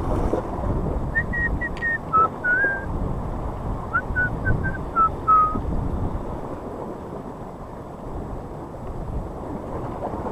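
Wind buffeting the microphone over choppy sea, with surf washing against the rocks. About a second in comes a string of about a dozen short, clear whistled notes, lasting about four seconds.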